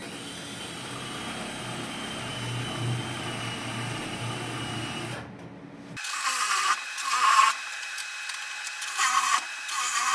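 Electric drill running steadily for about six seconds. After an abrupt cut, a paddle bit bores into wood in several short, louder spurts.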